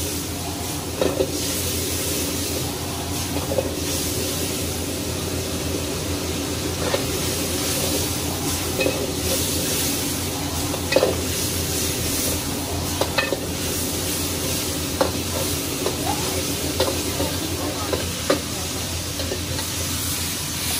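Peppers and meat sizzling steadily as they are stir-fried in an iron wok over a high flame. The metal ladle scrapes and knocks against the wok every couple of seconds.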